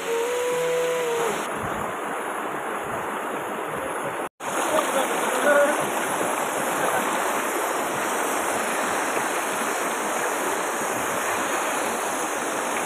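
Shallow river rushing and splashing over rocks, a steady rush of water. It is cut by a brief dropout about four seconds in. Over the first second a few held tones of music end.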